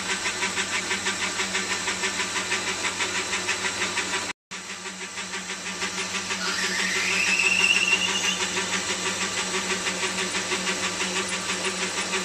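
Metal lathe running with an even pulse about four or five times a second while a twist drill fed from the tailstock bores out a bronze bearing bush. For a couple of seconds past the middle the drill squeals, rising in pitch as the sound gets louder, then settles back to the steady cutting.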